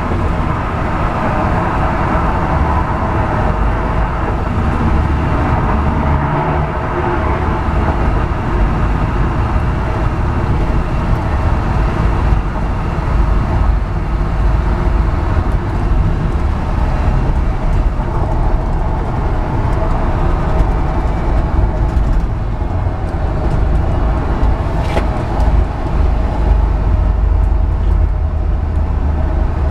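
Steady driving noise inside the cab of a 1970 Chevrolet truck cruising at freeway speed: a continuous low engine drone and road rumble. A single short click comes near the end.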